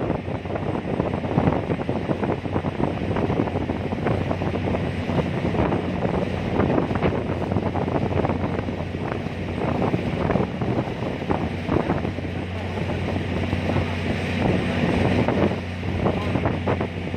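Wind buffeting the microphone in irregular gusts over the steady low hum of a ferry's engine.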